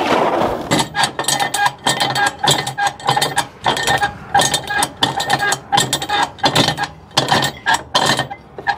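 Flatbed trailer strap winch ratcheting as a cargo strap is wound back up: a rapid run of metallic clicks in uneven bursts.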